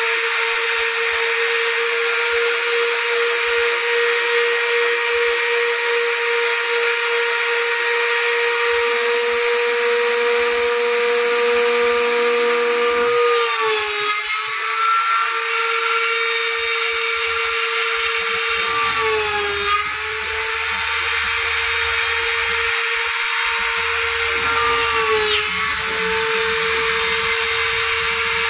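Small handheld electric router, mounted as the spindle of a homemade wooden CNC machine, running at high speed with a steady high whine. Its pitch sags briefly three times, about six seconds apart, then recovers.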